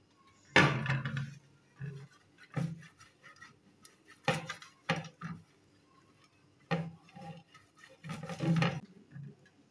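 Silicone pastry brush greasing a thin aluminium baking tray with oil: an uneven series of scrapes and taps of the brush on the metal, the loudest about half a second in and a longer stretch of brushing near the end.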